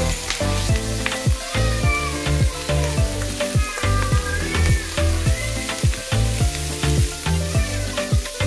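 Chopped pork sisig sizzling as it is scooped into a hot cast iron pan with smoking margarine and stirred with a spoon. Background music with a steady beat plays under it.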